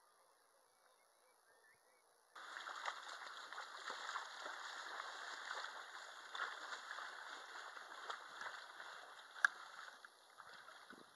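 Faint for about two seconds, then water sloshing and splashing around a person's legs as he wades in the shallows pushing a small proa sailboat off. There is one sharper splash or knock about nine and a half seconds in.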